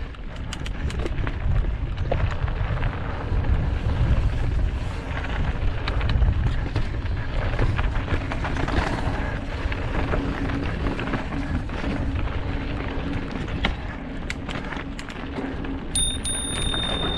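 Mountain bike descending a loose, rocky dirt trail: a steady rumble of wind rushing over the camera microphone, with tyres crunching over gravel and scattered clicks and rattles from the bike. Near the end a thin, steady high tone starts abruptly.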